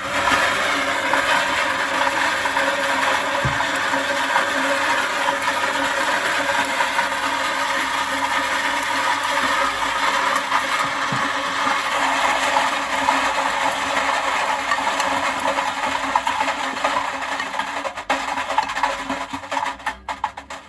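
Gorenje SensoCare washing machine drum turning at speed with heavy bricks inside: a loud, continuous clattering and banging of bricks against the drum from a badly unbalanced load, breaking up into separate knocks near the end.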